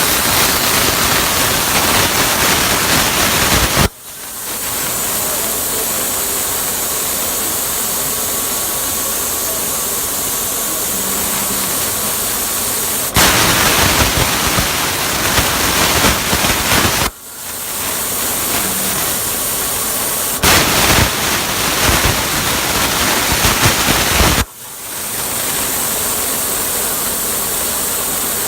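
Plasma cutting torch on a CNC cutting table running, a loud hissing cut in three stretches that each cut off suddenly, with a quieter steady hiss in between.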